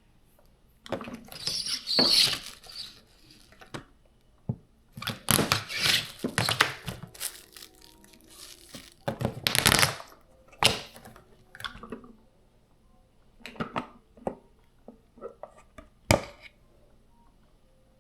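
Kitchen handling sounds: irregular rustling, scraping and clatter of food and utensils being worked on, with a sharp knock near the end.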